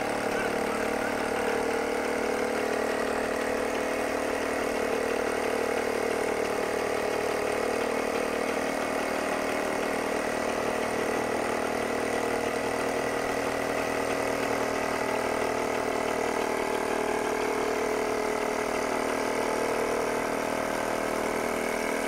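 Ultralight aircraft's engine and propeller running steadily on the ground.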